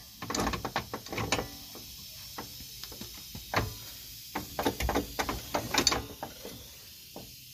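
Irregular metallic clicks and clanks of hand tools working on car suspension parts, in two bunches: one in the first second or so and another about four and a half seconds in.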